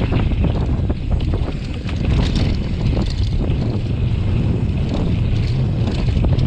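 Downhill mountain bike ridden fast down a dry dirt trail: wind buffeting the microphone with a steady low rumble, and frequent short clacks and rattles as the bike goes over bumps.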